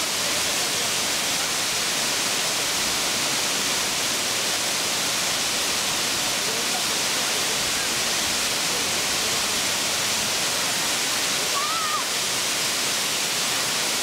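Llanos de Cortés waterfall: a steady, even rush of water falling over a rock ledge into a pool. A single short chirp sounds faintly near the end.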